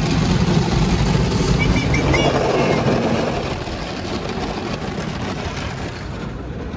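Automatic car wash machinery running around a car, heard from inside the cabin: a steady noisy rush over a low rumble, with a few brief high squeaks about two seconds in. It eases a little in the second half.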